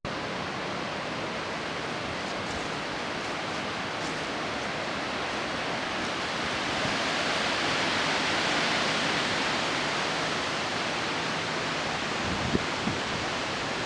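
High winds of a severe thunderstorm blowing through trees: a steady, dense hiss that swells about halfway through. Near the end come a couple of low thumps of wind buffeting the microphone.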